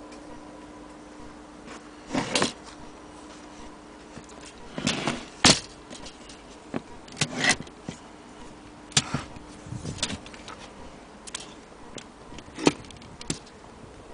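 Vintage Underwood manual typewriter being worked by hand: about a dozen sharp mechanical clacks and knocks at irregular intervals, some in quick pairs, over a faint steady hum.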